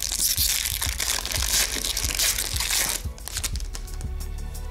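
Foil wrapper of an Upper Deck hockey card pack crinkling as it is torn open, loud for about three seconds, then softer rustling and clicks as the cards are slid out.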